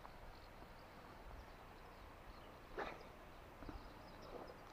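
Quiet outdoor ambience with faint, scattered bird chirps and one short sharp knock about three seconds in.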